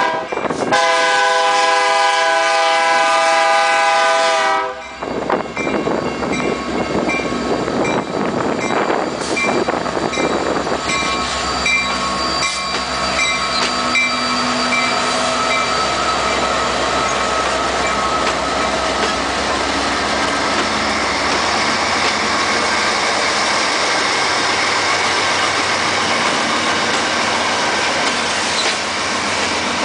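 CN freight train's diesel locomotives sounding one long, loud horn blast of about four seconds at a grade crossing, the warning for the crossing. The locomotives then pass close by with engines running and wheels clattering over the rails, followed by tank cars rolling past. A crossing bell dings steadily through the first half.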